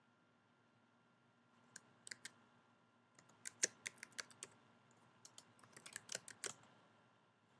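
Faint typing on a computer keyboard as a password is entered: an irregular run of quick keystrokes that starts about two seconds in and stops shortly before the end.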